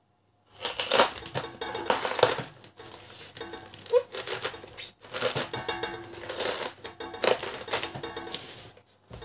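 Large kitchen knife cutting through a raw, tight head of white cabbage on a wooden board: crisp crackling and crunching of the leaves, in several spells with short pauses.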